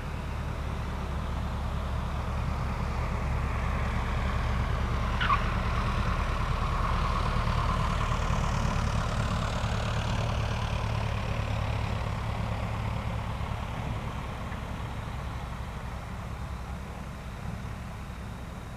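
Cessna 172R Skyhawk landing: its four-cylinder piston engine at low power, with propeller and rolling noise growing louder as the plane passes and fading as it rolls out. A short, sharp falling chirp comes about five seconds in.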